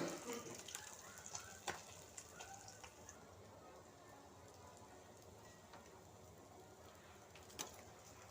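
Faint sizzle of tilapia frying in oil, with scattered crackling pops, most of them in the first three seconds and one more near the end.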